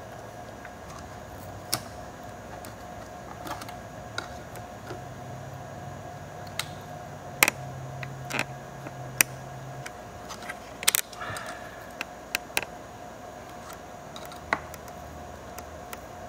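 Scattered sharp clicks and snaps of hard plastic on a Panasonic Toughbook CF-29 laptop as its plastic cover is pried loose with a utility knife and small parts inside the chassis are worked free, with a quick run of clicks about 11 seconds in. A steady hum runs underneath.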